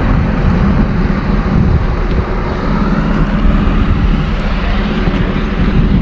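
Heavy truck traffic close by: a steady engine rumble mixed with road and wind noise.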